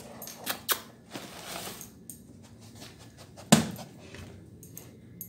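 Handling noises on a tile floor: a few light clicks and a short rustle, then one loud knock about three and a half seconds in as a dark plastic dog feeder bowl is set down on the tiles.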